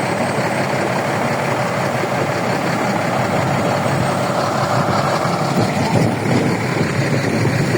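Heavy diesel engine of earth-moving equipment running steadily, its low end growing heavier from about six seconds in.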